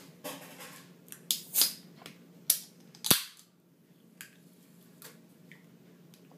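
Soda can being opened by its pull tab: a few sharp clicks as the tab is worked, then a loud pop about three seconds in as the can cracks open.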